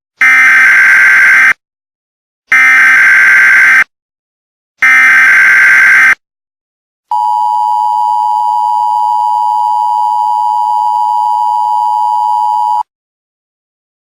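Emergency Alert System activation: three short bursts of SAME header data tones, each about a second and a half long with brief gaps between them, then the steady two-tone EAS attention signal held for about six seconds before it cuts off.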